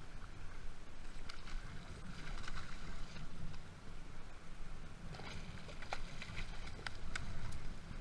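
Steady low wind rumble on the microphone, with light water splashing and crackling in two stretches, from about a second in and again from about five seconds in.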